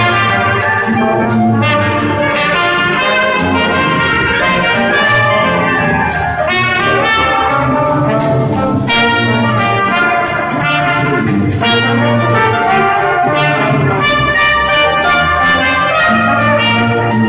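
Brass band playing a tune, several brass instruments sounding together over a steady percussion beat.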